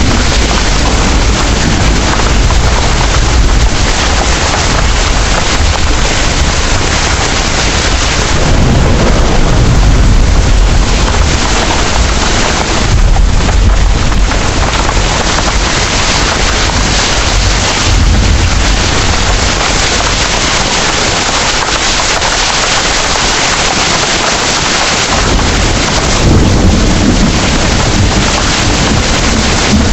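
Heavy rain falling steadily, with low rolling thunder that swells up several times.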